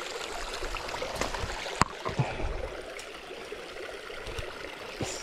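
Shallow rocky creek water running steadily over stones, with one sharp click a little under two seconds in.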